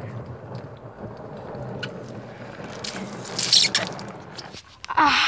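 Skateboard wheels rolling over wet stone paving, with a short hiss of water spray about three and a half seconds in. A brief vocal cry starts right at the end.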